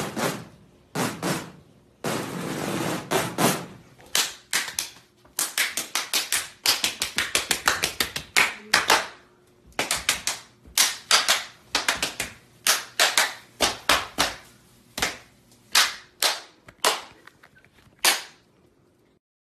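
A long series of sharp knocks and taps in an uneven rhythm, some in quick runs, with a denser rattle near the start. They stop about a second before the end, over a faint steady hum.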